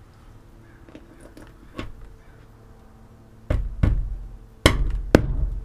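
Mallet knocking against the van's ceiling panel at the roof-fan opening: a light tap about two seconds in, then four sharp knocks in two pairs.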